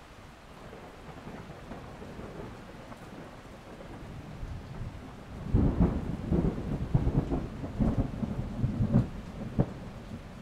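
Thunder rumbling over steady rain. The rumble builds from about a second in to a loud, jagged stretch of rolling peaks about halfway through, then eases off near the end.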